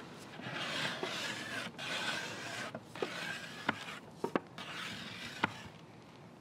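Metal scraper blade pushed across a teak veneer tabletop, lifting off old finish softened by paint stripper in several long rasping strokes. A few sharp clicks come in from about halfway through.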